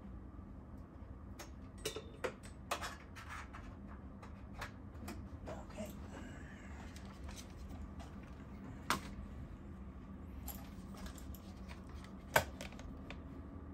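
Scattered clicks and light rattles of a USB mouse being plugged in and then clicked, over a steady low hum.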